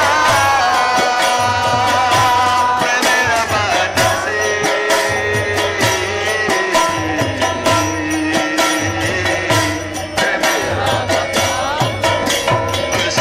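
Group devotional singing of a bhajan: a lead voice through a microphone with others singing along, over mridanga drums keeping a fast, steady beat.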